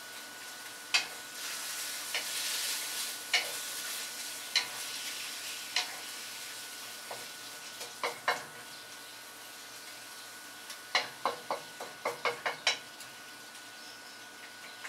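Chicken, peppers and onions sizzling in a hot oiled wok, the sizzle swelling a second or two in, while a spatula stirs and clicks against the pan; a quick run of clicks comes near the end.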